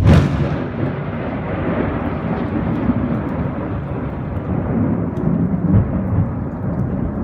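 Thunder in a heavy thunderstorm, recorded on a phone: loudest right at the start, then rumbling on without a break.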